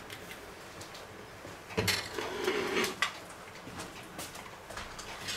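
Dishes and cutlery being handled: light clicks, then a knock about two seconds in followed by about a second of scraping and rattling.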